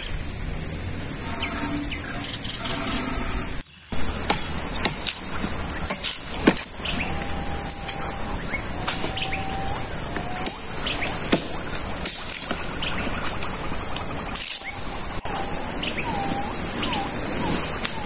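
Steady, high-pitched drone of forest insects, with short whistled bird calls coming in now and then over it, several in a row in the middle and a few more near the end.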